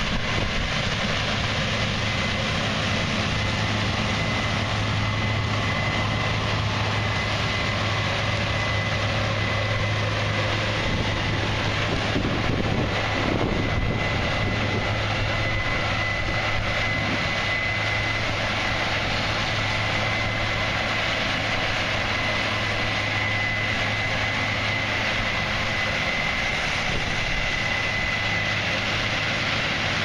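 Case IH 8120 combine running steadily while harvesting corn with an 8-row corn head: a constant low diesel drone with a thin, steady high whine on top.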